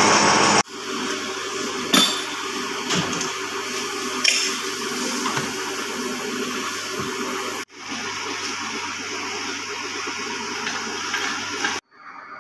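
Steady hiss and low hum of plastic jerrycan moulding machinery, with two sharp knocks a couple of seconds apart.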